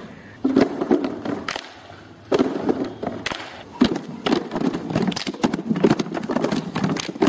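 A group of children clapping and slapping their hands in a quick, uneven rhythm, with children's voices under the strikes.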